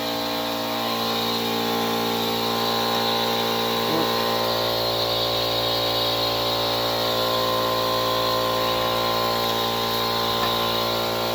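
Air compressor running steadily with an even hum, filling a portable air tank that stands at about 100 PSI.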